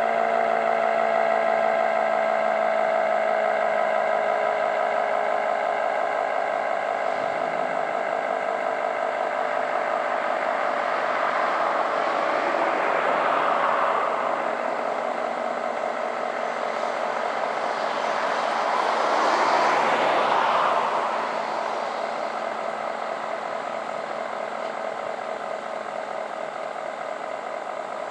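ACA Screamer dual-tone tornado siren sounding with its two pitches sliding slowly downward. Its level swells twice, then fades as it winds down.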